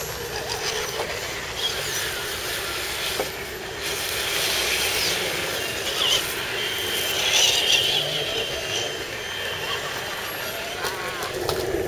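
Electric motors and geared drivetrains of scale RC crawler trucks whining as they crawl, the sound swelling and easing as the throttle changes.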